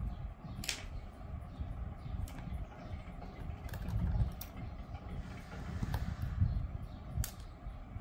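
Small magnetic screwdriver backing out the bottom-cover screws of an ASUS VivoBook laptop: a handful of sharp, scattered clicks of metal on screw and plastic case, over low handling rumble.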